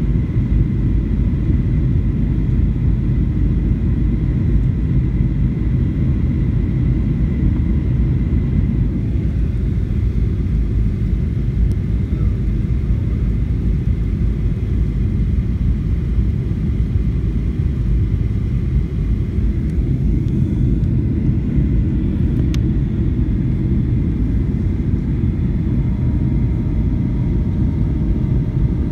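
Steady rumble of jet engines and airflow heard inside an airliner cabin during descent, with a brief faint click about two-thirds of the way through.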